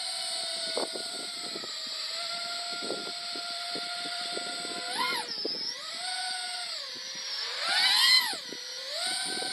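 FPV quadcopter's brushless motors whining steadily in a hover, with two quick throttle punches about five and eight seconds in where the whine jumps sharply in pitch and loudness and then drops back; the second is the louder.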